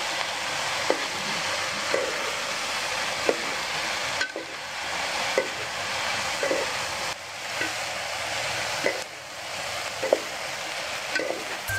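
Tofu, bean sprouts and chives frying with a steady sizzle in a non-stick electric wok. A cooking utensil stirring the food knocks against the pan about once a second, making short clacks.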